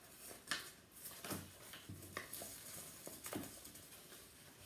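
Faint, scattered crackles and taps of a paper craft hat being handled and taped.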